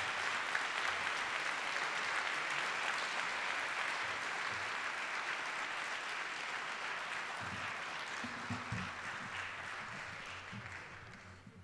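Audience applauding an announced award winner, steady at first and dying away near the end.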